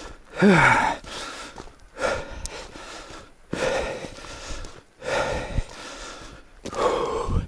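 A man breathing hard, out of breath from running, with heavy exhales about every second and a half; the first exhale is voiced, dropping in pitch.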